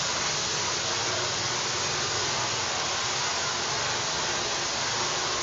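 Handheld hair dryer running steadily, its airflow rushing as hair is blow-dried.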